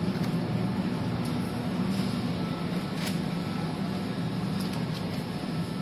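Steady low background hum of a supermarket, with a metal shopping cart being pushed along over the floor and a few faint clicks.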